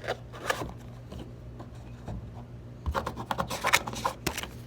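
Camera box and packaging being handled: scattered rubbing and scraping with short clicks, busiest in a cluster of sharp clicks and scrapes about three to four seconds in.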